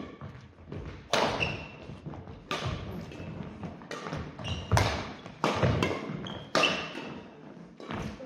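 Badminton rally: rackets striking the shuttlecock with sharp cracks about once a second, amid thudding footfalls on a wooden floor and brief high squeaks of court shoes after several of the strikes.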